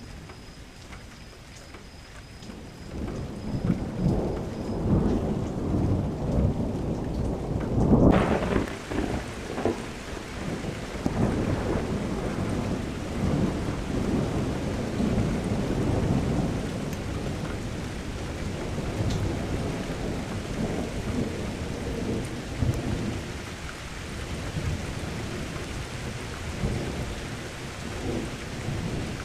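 Thunderstorm: thunder rumbling in from about three seconds in, with its loudest peal about eight seconds in, when the rain hiss suddenly turns heavier. Rolling thunder and steady heavy rain follow.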